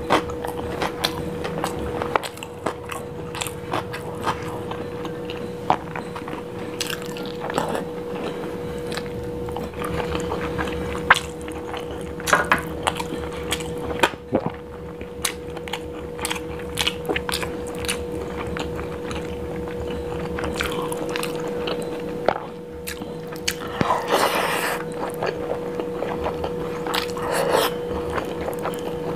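Close-miked ASMR eating: a mouthful of biryani rice chewed with wet smacks and mouth clicks, repeated throughout.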